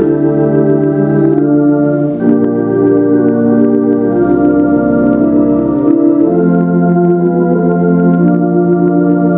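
Organ music: slow, sustained chords, the harmony changing about two seconds in and again past the six-second mark.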